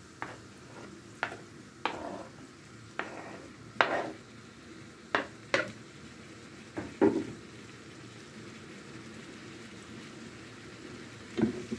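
A metal spoon knocking and scraping against a wooden cutting board and a frying pan as chopped tomatoes are pushed into the pan: about ten sharp clicks and knocks over the first seven seconds and one more near the end. Underneath, a faint steady sizzle of onions and carrots frying in the pan.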